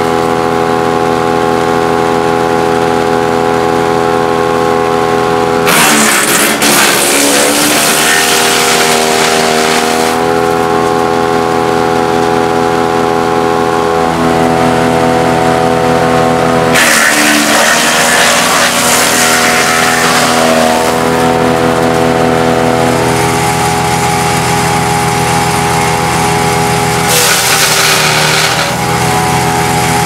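BWM PRO100 chipper shredder's petrol engine running steadily, with three spells of loud chipping and shredding noise as branches are fed in. Under each load the engine pitch dips briefly, then recovers.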